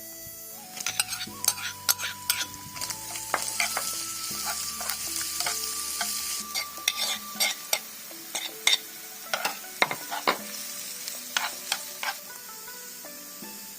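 Cured pork stir-frying in a pan: a sizzle with many quick scrapes and clicks of the spatula against the pan. The sizzle is strongest over the first half and eases off about eight seconds in, while the clicks go on.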